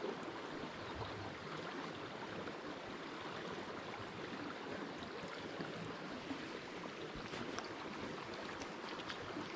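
Small mountain creek running steadily: a constant rush of flowing water.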